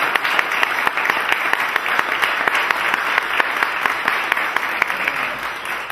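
Audience applauding with dense, steady clapping, welcoming a singer as she is introduced. The clapping eases slightly near the end.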